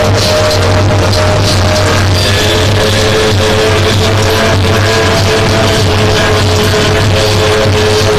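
Live noise music: a loud, unbroken wall of distorted noise with a steady low drone and a few held tones.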